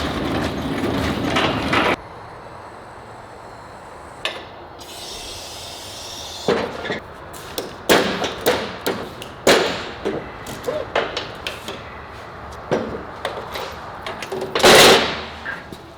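Scattered knocks and clanks of metal tools and parts being handled on a workbench. A louder, longer clatter comes near the end. A dense rushing noise at the start cuts off abruptly about two seconds in.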